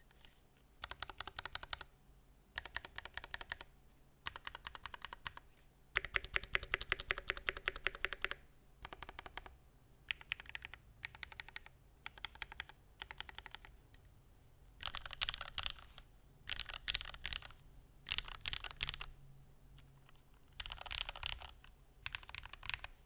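Typing on a Mode Sonnet custom mechanical keyboard: bursts of rapid keystrokes a second or two long, separated by short pauses. The longest and loudest burst comes about six seconds in.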